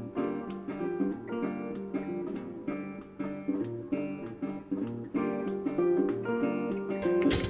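Background music: acoustic guitar playing a steady plucked, strummed pattern. A short sharp click sounds near the end.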